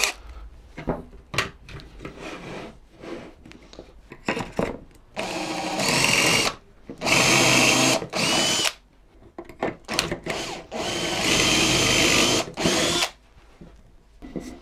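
A few clicks and knocks while a stepped drill bit is chucked and the jig clamped. Then, from about five seconds in, a Makita 18V cordless drill drives a stepped pocket-hole bit through a pocket-hole jig into solid pine, in five bursts of steady motor whine of one to two seconds each with short pauses between.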